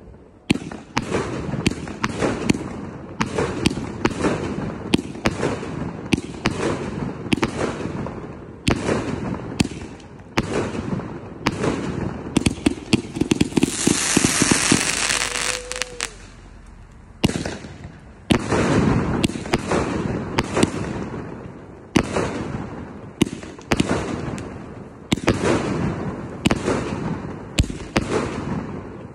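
A 160-shot compound firework cake firing a continuous barrage: sharp shots and bursts a couple of times a second, with a hissing rush of sparks for a few seconds about halfway through.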